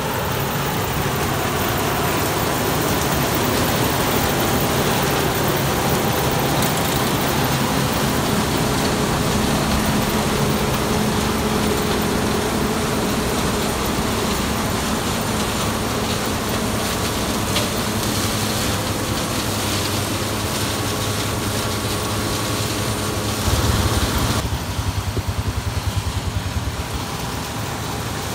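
Farm harvest machinery running steadily: an engine hum under a dense mechanical hiss. About 24 seconds in, the hiss drops away, leaving a low, fast pulsing throb.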